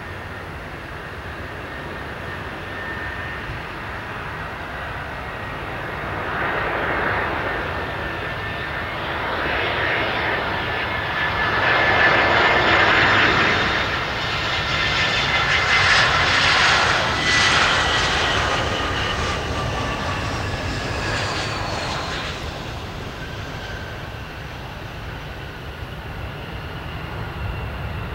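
Airbus A320 airliner's jet engines on final approach to landing: a rushing jet noise with a whine that swells as the plane passes, loudest about halfway through, the whine sliding down in pitch as it goes by, then easing off as the plane settles onto the runway.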